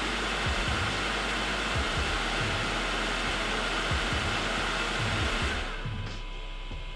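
Elegoo Centauri Carbon 3D printer's fans running at high speed, a loud steady rush of air with a few faint steady tones, spinning down about five and a half seconds in. Background music with a steady beat plays underneath.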